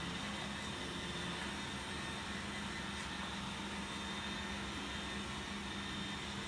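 Two electric stand fans running: a steady whir of blowing air with a low motor hum.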